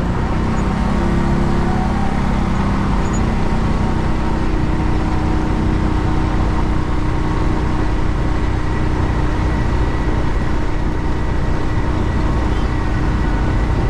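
Kawasaki Mule 3010's 620 V-twin engine running steadily under load as the utility vehicle drives up a grade in high range.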